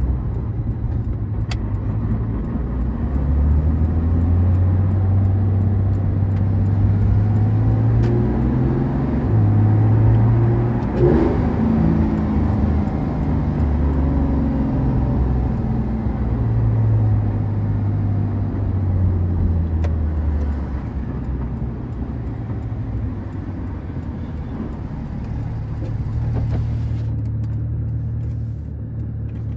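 Porsche 911 GT3 RS (991.2) naturally aspirated 4.0-litre flat-six heard from inside the cabin on an easy road drive, its note rising and dropping in pitch as the car accelerates, shifts and eases off, over tyre and road noise.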